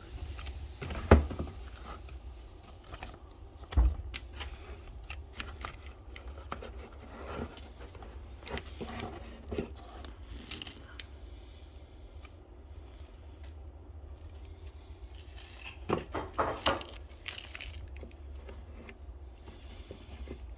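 Packaging being opened and handled: rustling, crinkling and tearing, with small parts clicking and clattering. There are sharp knocks about a second in and near four seconds, and a burst of clatter around sixteen seconds.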